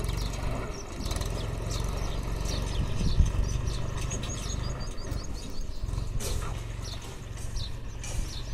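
Tractor's diesel engine running steadily as the tractor and its trolley drive away along the river bed, with birds chirping.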